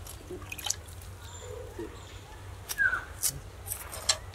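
Water splashing and dripping as a hand works in a metal bucket of water, with several sharp clicks and knocks, more of them in the second half.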